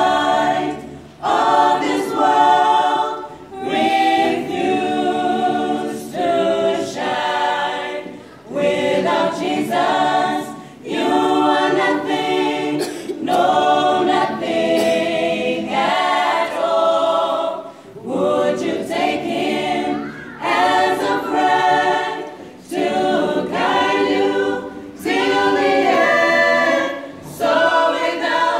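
Mixed choir of young men's and women's voices singing a cappella, with no instruments, in phrases a second or two long separated by brief breaks.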